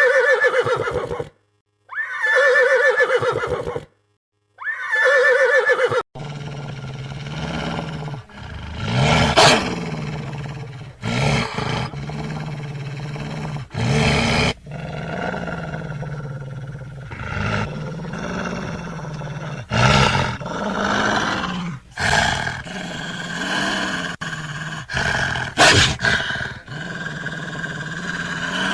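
A series of animal calls: three separate, repeated pitched calls in the first few seconds, then a continuous mix of overlapping animal noises with louder calls breaking through now and then.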